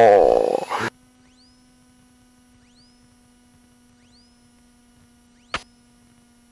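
Loud light-aircraft cockpit noise that cuts off abruptly about a second in, leaving a faint steady electronic hum with a short rising chirp repeating about every second and a half, and a single click about five and a half seconds in.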